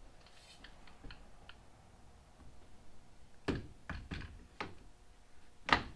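Roof rack crossbar and its mounting foot knocking and clicking against the car's roof rail as it is set in place. A few faint ticks come first, then about five sharp knocks in the second half, the loudest just before the end.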